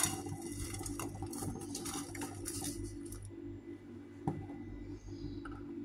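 Brown sugar poured from a plastic measuring cup into a nonstick frying pan: a tap at the start, then the granules pattering onto the pan for about three seconds, and a single light knock about four seconds in, over a steady low hum.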